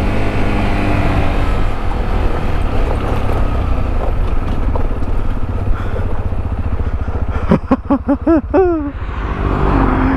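Sinnis Terrain T125's small single-cylinder engine running steadily under way on a dirt track. About three quarters of the way through comes a quick run of short, high yelps from a voice.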